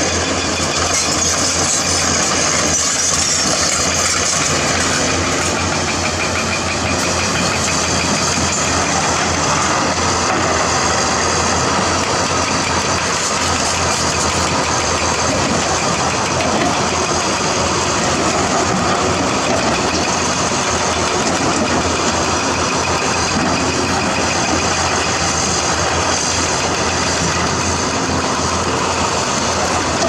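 Diesel engines of hydraulic excavators working in rock, the nearest a Caterpillar 320D2, running steadily under load.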